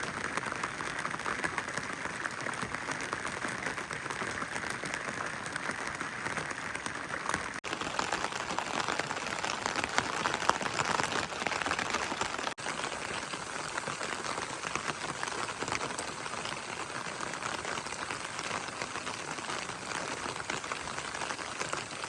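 Steady rain falling, a dense patter of drops that drops out for an instant twice.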